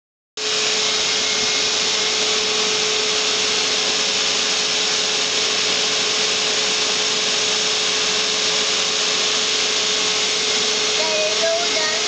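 Vacuum cleaner running steadily through its hose: an even rushing hiss with a steady hum underneath.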